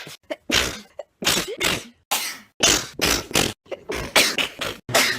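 A rapid string of sneezes, about ten in five seconds, each a short sharp burst, broken by sudden silences between them.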